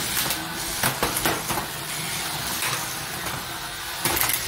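Small electric motors of toy Hexbug Battlebots robots whirring, including Riptide's eggbeater spinner on an oversized motor, with a few sharp plastic clacks and knocks, the strongest about four seconds in.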